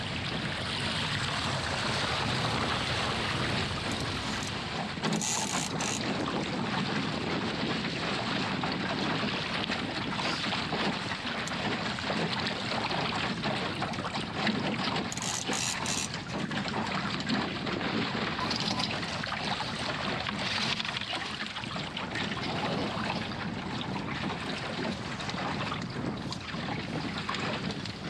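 Water rushing and splashing along the hull of a small plywood skiff under way in choppy water, with wind buffeting the microphone.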